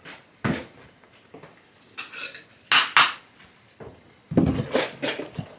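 Hand tools and a wooden board clattering on a workbench as they are picked up and moved: a few separate sharp knocks, then a quicker run of knocks and rattles near the end.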